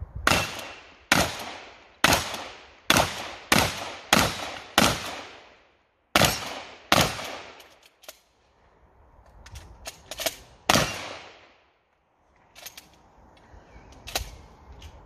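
Shotgun firing on an IPSC stage: a rapid string of about seven shots, then a few more shots separated by pauses, with fainter clicks and knocks between them.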